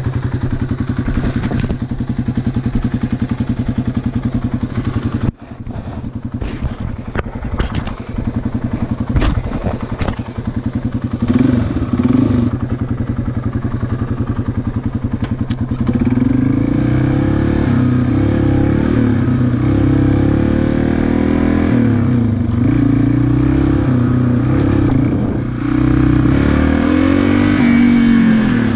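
Yamaha TT-R225 dirt bike's single-cylinder four-stroke engine idling steadily, with scattered clicks and knocks and a short blip of the throttle about halfway through. For the last dozen seconds it is louder, revving up and down repeatedly as the bike is ridden.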